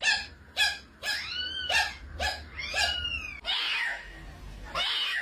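A cat giving a quick run of short, pitched calls, about two a second, then a longer, noisy, raspy sound and another short burst near the end.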